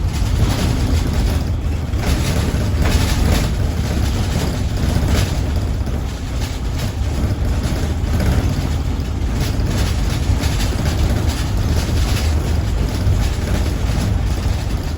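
Road and engine noise of a car on the move: a steady loud low rumble with a rushing hiss over it.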